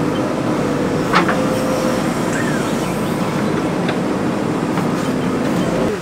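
JCB backhoe loader's diesel engine running steadily under working load, heard from inside the cab, with a sharp clank about a second in and a fainter one near four seconds as the bucket works the stone and soil.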